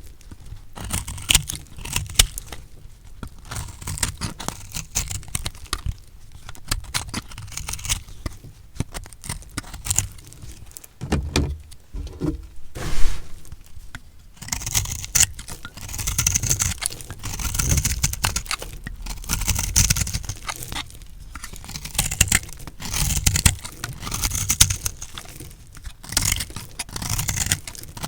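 A blade cutting through recycled soap, with dense crackly crunching and scraping in repeated strokes. One sharp knock about halfway through is the loudest moment.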